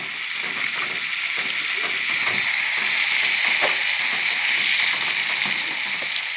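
Shrimp frying in melted butter and garlic in a pan, with a steady sizzle.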